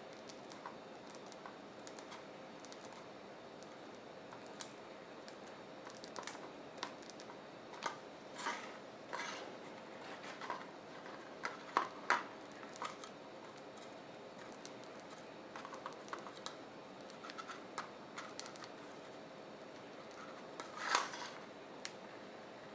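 Faint, scattered crinkling and squishy scratching from a piping bag being squeezed as thick white paste is piped onto a tart, with a louder rustle near the end. A faint steady hum runs underneath.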